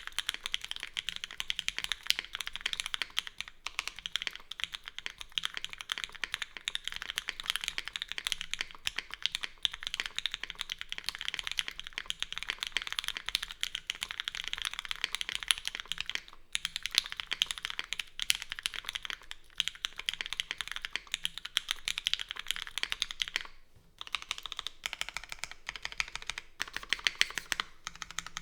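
Steady fast typing on a Keycult No.2 custom mechanical keyboard with lubed Gateron CJ linear switches, GMK keycaps and a full aluminium plate with no foam. The keystrokes pause briefly about three-quarters of the way through, then resume.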